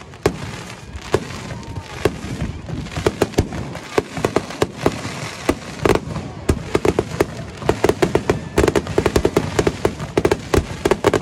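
Fireworks display: a run of sharp bangs and crackle from shells bursting overhead, the reports coming thicker and faster from about halfway through.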